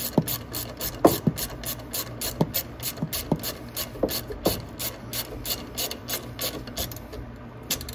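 Ratchet wrench clicking quickly and evenly, about four or five clicks a second, as it turns the nut on the battery hold-down bracket bolt of a 125cc mini jeep. A few louder metal knocks stand out, and the clicking stops near the end.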